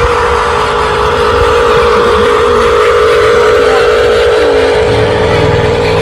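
Radio-controlled construction vehicle running with a steady engine-like drone, a deeper rumble joining about five seconds in.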